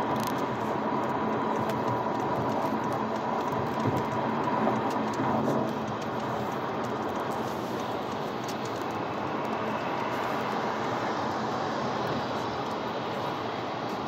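Steady road and tyre noise with engine hum, heard inside a car's cabin while driving at freeway speed. It gets slightly quieter about six seconds in.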